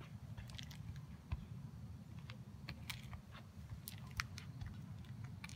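Faint, irregular clicks and crunches over a low, steady rumble: handling and movement noise while filming on an asphalt-shingled roof.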